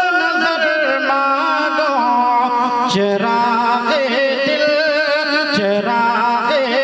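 A man singing a naat in a long, drawn-out melodic line, the pitch sliding and wavering between held notes without clear words.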